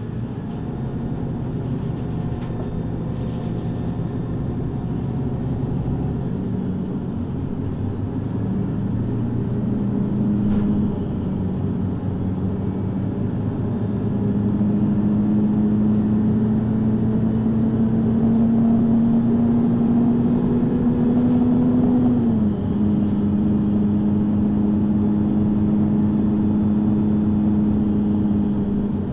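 MAN NG 323 (Lion's City G) articulated bus engine pulling under load, its pitch climbing slowly. The automatic gearbox shifts up about ten seconds in and again about 22 seconds in, when the pitch drops sharply. After that the engine runs on at a steady pitch.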